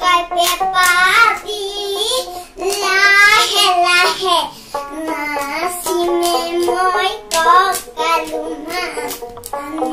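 A young girl singing a Bihu song with a wavering voice and short pauses between phrases, clapping her hands along at times.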